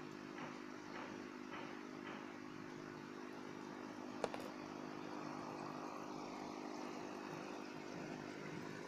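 Steady hum of an aquarium pump, with a few faint ticks in the first two seconds and one sharp click about four seconds in.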